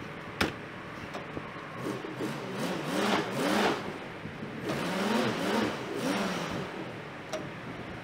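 A truck door shuts with a knock, then the Ford F-250 pickup's engine is revved in two surges, its pitch rising and falling, as the stuck two-wheel-drive truck tries to pull out of soft ground.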